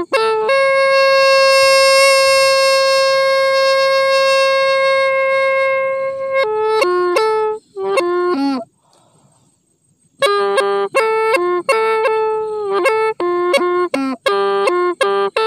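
Solo Hmong raj lev les, a small end-blown pipe, playing a melody. It holds one long note for about six seconds, plays a few short notes, pauses for about a second and a half, then plays a run of short, quick notes.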